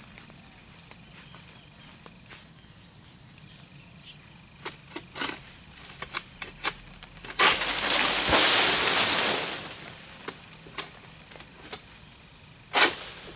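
Steady high chirring of insects, with scattered clicks and rustles from an egrek, a long-pole harvesting sickle, working among the fronds of an oil palm crown. About seven seconds in comes a loud rustling scrape lasting about two seconds, and another short one near the end.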